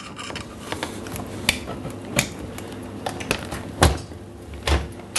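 Flathead screwdriver prying at the plastic retaining clips of a dishwasher detergent dispenser as they are unclipped: a run of sharp plastic clicks and taps, the loudest a knock about four seconds in.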